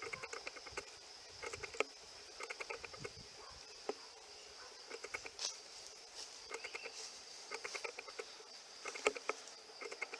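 Footsteps brushing and crackling through grass at a walking pace, a soft cluster of rustles with each step, over a steady high insect drone.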